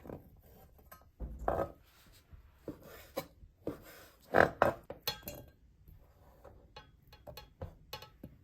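Irregular clicks and knocks with short scraping bursts, the loudest about one and a half and four and a half seconds in.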